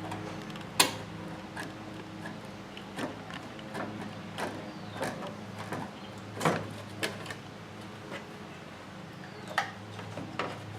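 Hand snips cutting a gutter valley controller along a marked line, giving scattered sharp snipping clicks over a steady low hum.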